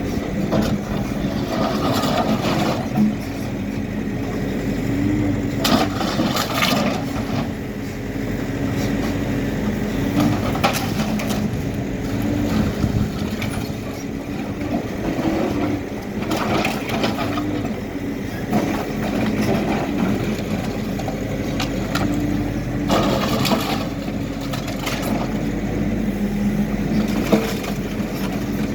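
Hidromek backhoe loader's diesel engine running steadily under load, with repeated crunching and cracking crashes as the machine breaks up building debris, several times over.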